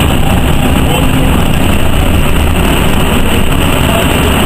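NovaBUS RTS city bus running along the road, heard from inside the cabin: a steady low engine and road rumble with a constant haze of ride noise.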